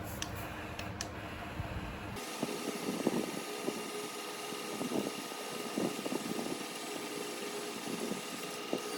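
Steady whine of a small electric motor and its gearing, from a radio-controlled truck, with irregular short rasping noises over it; the sound changes abruptly about two seconds in.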